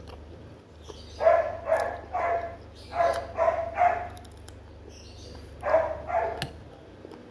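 A dog barking in short runs, about eight loud barks in three groups of two or three, over a low steady hum.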